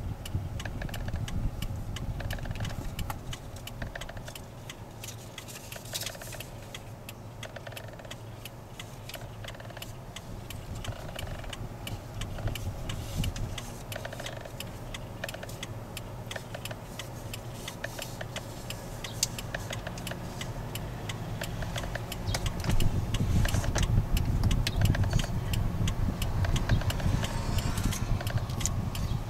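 Inside a Lexus RX450h, a turn indicator ticks along with many short clicks as the steering wheel is turned slowly with the left indicator on. The clicking is the noise the owner complains of, which Lexus calls normal for the model. A low rumble grows louder from about two-thirds of the way through.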